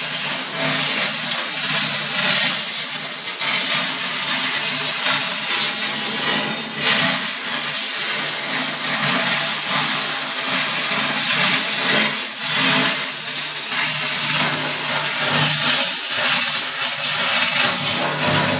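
Kärcher DE 4002 steam cleaner's hand nozzle jetting steam onto floor tiles: a loud, continuous hiss with a low hum underneath.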